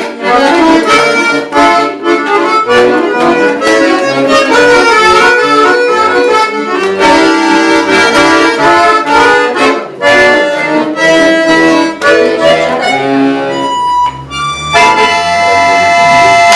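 Instrumental music: a quick melody of many short notes over a chordal accompaniment, ending on a long held chord about fifteen seconds in.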